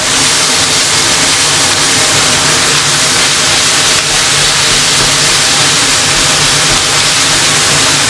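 Green chili peppers frying loudly in oil in a wok, a steady, even sizzle as they are stirred and turned with a silicone spatula.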